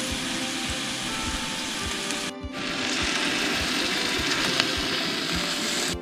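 Steady hiss of heavy rain with scattered drips, cut off briefly about two seconds in.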